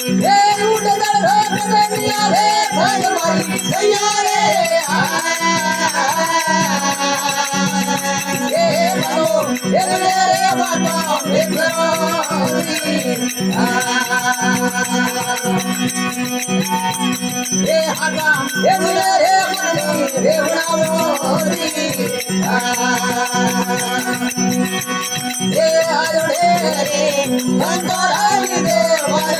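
Rajasthani folk bhajan music: a steady drone under a melody line that bends in pitch in phrases of a few seconds, with a rattling percussion instrument keeping time.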